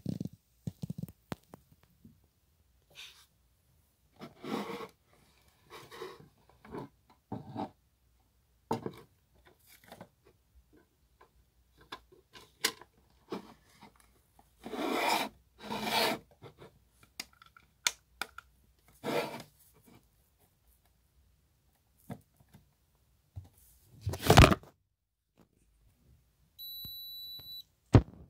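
Plastic handling sounds: a silicone resin mold and a plastic lamp case being slid, rubbed and set down on a wooden table, in short irregular scrapes, with one sharp knock about four seconds before the end. Near the end the closed lamp gives a steady high electronic beep, which stops briefly and starts again.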